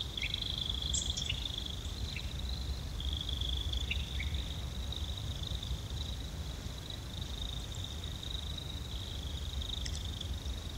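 A steady high-pitched trilling drone, like an insect chorus, over a low rumble, with a few short faint chirps in the first half.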